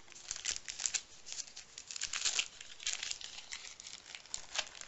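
Wrapping paper crinkling and tearing in quick, irregular crackles as a small wrapped gift is opened by hand.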